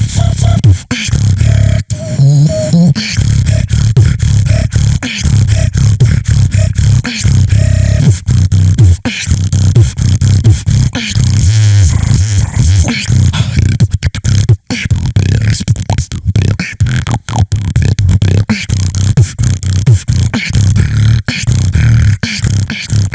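Solo beatboxing: a continuous, fast run of mouth-made drum hits and clicks over a strong, deep bass.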